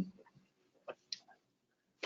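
A pause in speech: a word trails off, then two faint short clicks about a second in, a quarter second apart.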